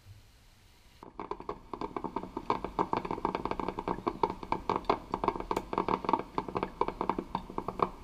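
Electric drip coffee maker brewing, gurgling and sputtering in a rapid, irregular run of pops over a steady low hum, starting about a second in.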